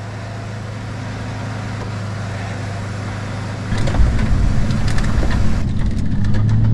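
Running and road noise of a pickup truck carrying a slide-in camper, driven through a 30 mph slalom and heard from under the truck: a steady low drone with tyre hiss that slowly grows louder. About four seconds in it turns into a rougher, louder rumble with a few sharp knocks, and near the end it changes to the duller hum heard inside the cab.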